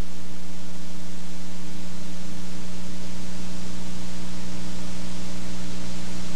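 Steady loud hiss with a low, unchanging hum beneath it: noise on the sound track of an old video tape, with no programme sound over it.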